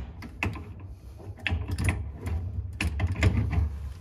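Steel adjustable wrench clicking and tapping against the brass nuts of a flexible gas connector and gas valve as it is fitted and worked on the fitting: a run of irregular sharp metallic clicks over a low rumble.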